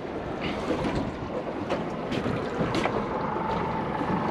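Wind buffeting the microphone and water slapping around a small boat's hull, with a few light knocks. A faint steady hum comes in about halfway through.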